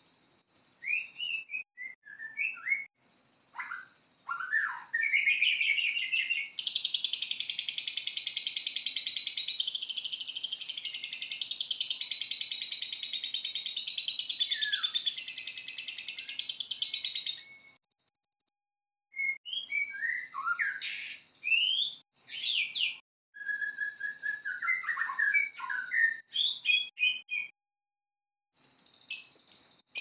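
Lovebird chatter and white-rumped shama (murai batu) song alternating. The shama gives short whistled phrases that slide up and down. The lovebird gives shrill, rapid, unbroken chatter, with one long run of about ten seconds in the middle. Both sing in short sections broken by abrupt gaps.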